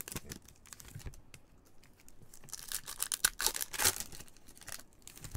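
Foil trading-card pack wrapper crinkling and tearing as it is opened by hand, in irregular crackles that are loudest about three to four seconds in.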